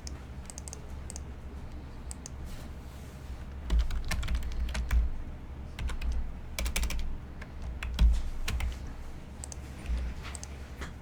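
Short runs of sharp clicks and taps with dull knocks under them, coming in several bursts with gaps between.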